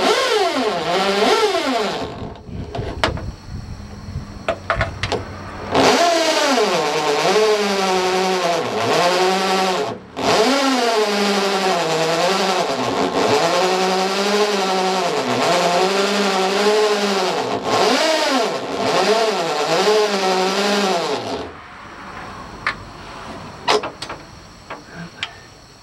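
Corded electric drill running a step bit through the sheet steel of a 1953 Ford F100's door to make the hole for a door popper, its motor whine wavering in pitch as the bit bites. It runs in two spells, easing off between about 2 and 6 seconds in, then stops abruptly a few seconds before the end, leaving a few light clicks.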